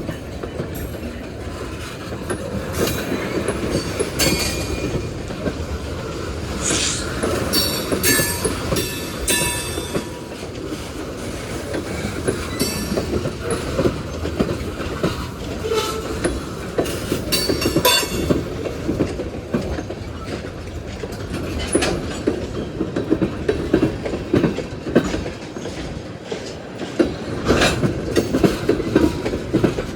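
Freight train tank cars rolling past, the wheels clacking steadily over the rail joints, with short sharp squeals and clanks now and then.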